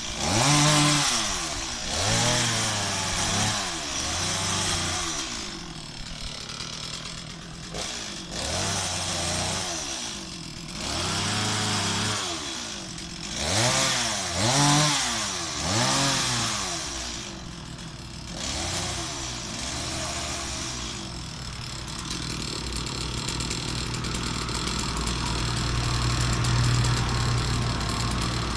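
Stihl MS 260 two-stroke chainsaw revved up and let back down again and again. It then settles into a steady idle for the last several seconds.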